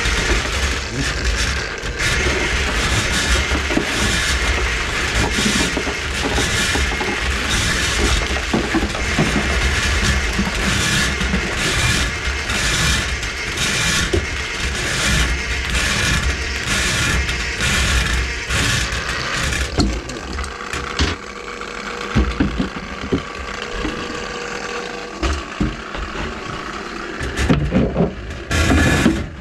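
Electric drain-cleaning machine running, its spinning steel cable clattering and rattling inside a kitchen sink drain line as it works through a grease clog. About twenty seconds in the noise drops off sharply, and a few loud knocks come near the end.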